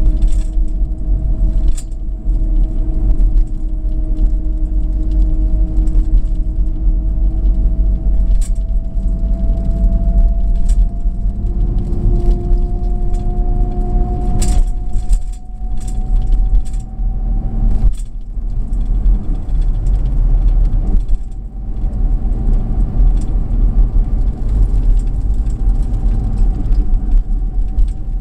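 Car interior driving sound: a steady low road rumble with the engine's hum drifting slowly up in pitch. Occasional small clicks and rattles sound through it.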